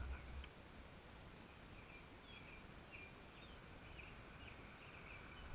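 Faint songbird chirps, short high notes repeating through a quiet background, with a brief low rumble at the very start.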